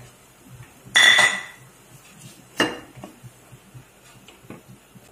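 Wooden spatula stirring chunks of fried chicken into thick curry gravy in a pan, with soft scraping and ticks. A ringing clink of dishware about a second in is the loudest sound, followed by a sharper knock a little later.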